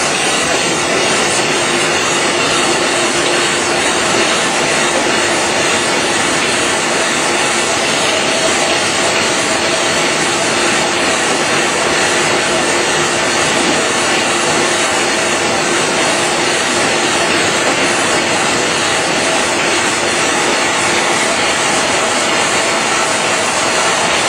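Kase Equipment nine-colour dry offset cup and pail printing machine running: a steady, loud mechanical din with a faint constant hum in it.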